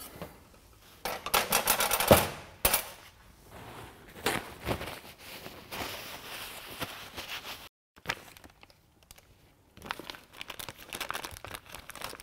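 Workshop handling noise of hand tools and metal parts: a run of rapid clicks and clatters with a sharp knock about two seconds in, softer rustling and handling, then more rapid clicking near the end.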